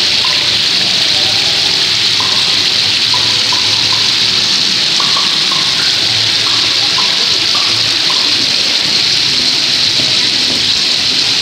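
Steady rushing splash of water from a small artificial waterfall pouring into a display pond.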